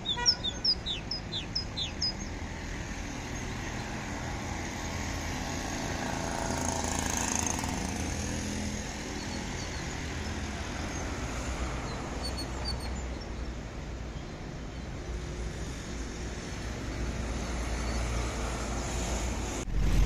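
A caged songbird gives a quick run of high chirps in the first two seconds, and a few faint chirps again about twelve seconds in, over a steady outdoor background rumble.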